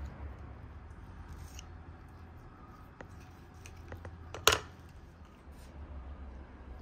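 Food-preparation handling sounds: a few light clicks and one sharp knock about four and a half seconds in, over a low steady hum.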